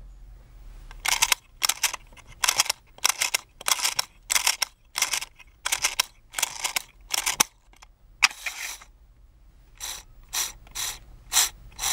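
Wind-up key of a vintage talking baby doll's mini record-player voice box being turned in short repeated strokes, each a burst of ratcheting clicks, about two a second. The winding pauses for a second or two past the middle, then starts again.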